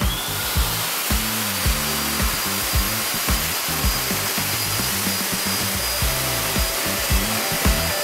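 A hose-type pet grooming dryer switching on with a brief rising whine, then blowing steadily with a loud, even rushing hiss and a faint high whine, drying a wet dog's coat.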